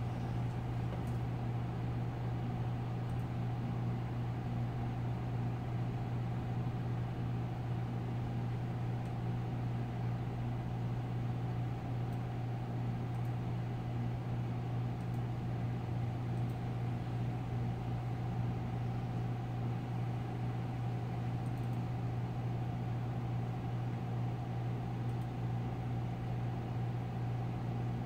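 Steady low electrical or machine hum with a few fainter steady tones above it, over an even hiss.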